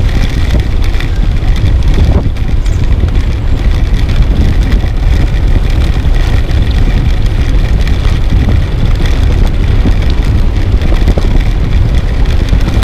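Wind buffeting the microphone of a camera on a moving bicycle, a loud steady rumble.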